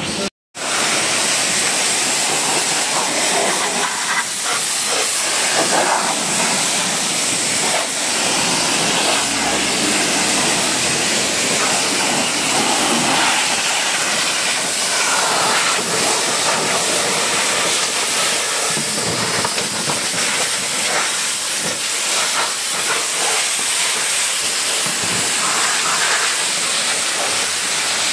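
Pressure-washer lance spraying a steady high-pressure jet of water onto a car's alloy wheel and tyre, a continuous hiss. A very short silence comes right at the start, before the spray begins.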